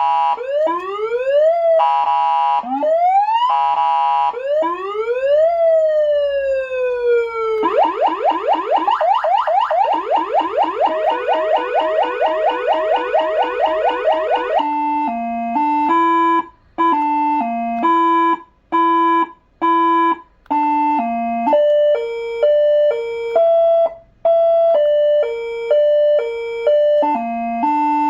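An AS940 400 W electronic siren amplifier sounding through a siren speaker, cycling through its tones. First come repeated rising whoops with a couple of short steady blasts, and one long falling wail. Next, from about eight seconds in, a fast repeated yelp, then a stepped pattern of tones hopping between pitches with short gaps, like a simple tune.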